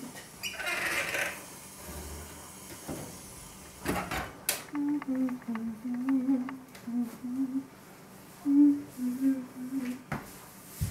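A woman humming a slow tune to herself, beginning about five seconds in. Just before it, a short clatter of the range's broiler door being pushed shut, and near the start a brief hiss.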